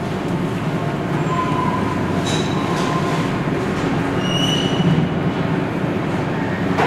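Steady mechanical rumble with a few brief high-pitched squeals about two and four seconds in, and a sharp click near the end.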